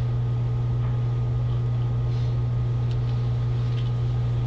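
Steady low hum of room background noise, unchanging and with no other sounds.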